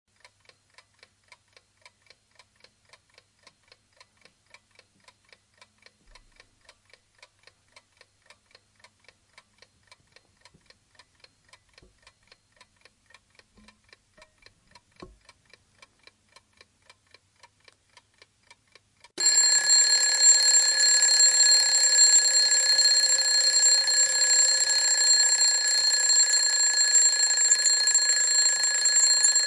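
Mechanical alarm clock ticking faintly and steadily, then about two-thirds of the way through its bell alarm starts suddenly and rings loudly and continuously.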